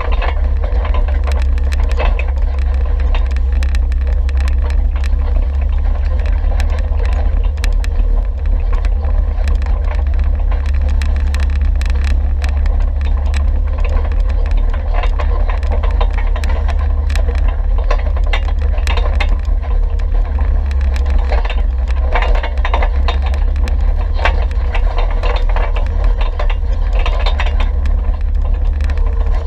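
Wind buffeting the microphone of a camera mounted on a machine riding down a rocky dirt trail, heard as a steady low rumble. Over it run constant rattles and clicks from rolling over loose rock and gravel.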